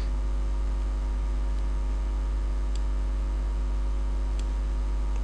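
Steady electrical mains hum with a stack of even overtones, the recording's background hum. Two faint clicks come through it near the middle and late in the stretch.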